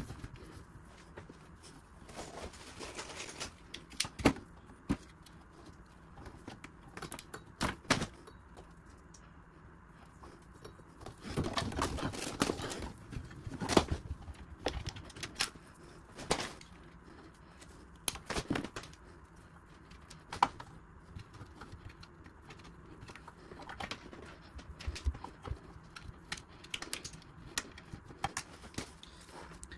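Handling noise from thin plastic SureStop switch tubes being looped and routed by hand in a cupboard: scattered light clicks and knocks, with a longer stretch of rustling about eleven seconds in.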